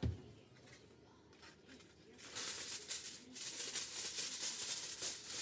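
Aluminium foil being pulled from its box and crinkling, a loud, dense crackle that starts about two seconds in. A dull thump comes at the very start.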